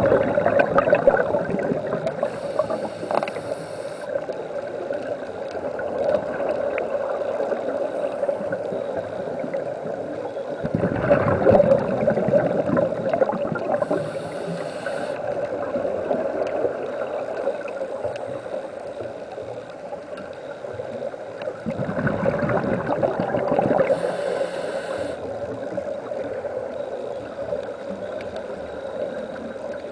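Scuba divers' regulator exhalations heard underwater: three bubbling rushes of exhaled air about eleven seconds apart, over a steady dull underwater hum.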